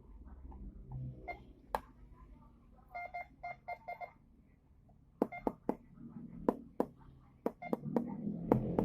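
MD 4030 metal detector giving a quick run of about five short beeps, followed by a series of sharp knocks.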